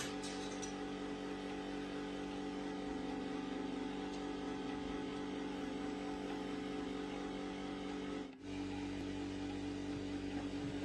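An electric motor running with a steady hum. It cuts out briefly about eight seconds in, then carries on.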